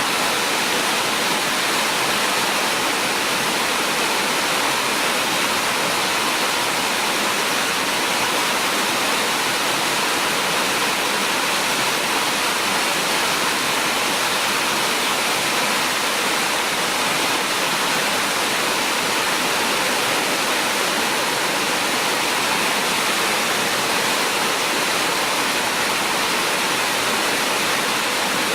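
Heavy rain falling, a steady, even hiss of water that does not let up.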